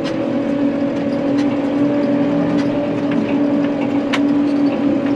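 Case 115 C tractor's diesel engine running steadily under load, driving a solid-manure spreader through the PTO, with a constant low drone. Scattered sharp knocks ring out over it, a loud one about four seconds in.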